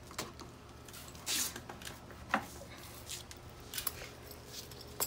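A pocket knife cutting off twisted rush cord at a chair rail, with rustling of the rush and a few sharp clicks; one click, a little past two seconds in, is the loudest.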